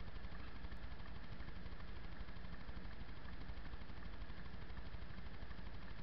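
Car engine idling with a steady low hum, heard from inside the car's cabin while stopped in traffic.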